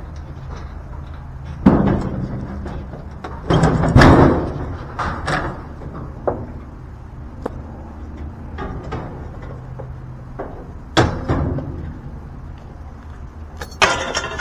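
A series of loud bangs and thuds, about five spread out irregularly, with a cluster of clattering hits about four seconds in, over a steady low hum.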